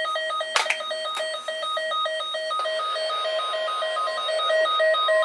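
Weather radio receiver's alert alarm going off: rapid electronic beeping, about five beeps a second, with a sharp click about half a second in and a hiss building underneath in the second half.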